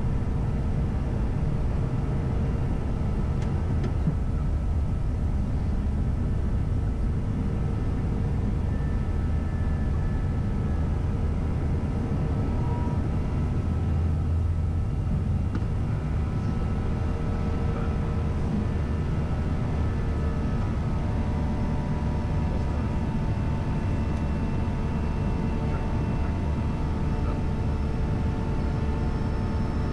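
Airbus A320 jet airliner climbing after takeoff: a steady low rumble of engines and airflow with faint held whining tones over it.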